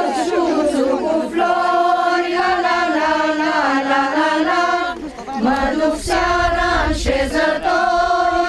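Several voices singing a folk song together without instruments, in long held notes with short breaks between phrases. Two short knocks cut in about six and seven seconds in.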